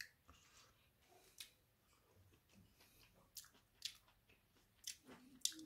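Faint chewing with scattered soft mouth clicks and smacks, a few sharper ones in the second half.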